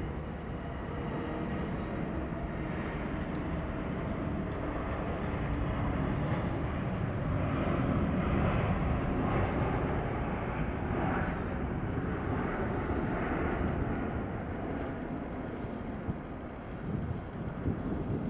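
Airbus A380's four Rolls-Royce Trent 900 turbofans at takeoff power, a steady jet rumble. It builds as the airliner rolls and lifts off, is loudest about halfway through, then slowly fades as it climbs away.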